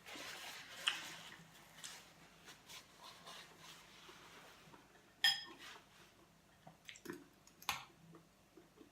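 Spoon clinking against a soup bowl a few times, one clink about five seconds in ringing briefly, with soft eating and slurping sounds of soup between.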